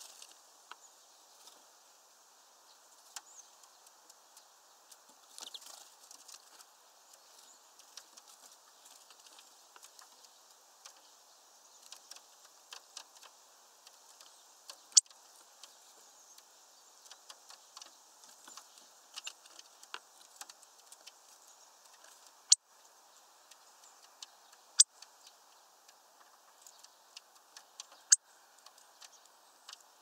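A hawfinch feeding on sunflower seeds at a feeder tray: a scatter of small clicks and taps, with a few loud sharp cracks, one about halfway through and three more in the last third.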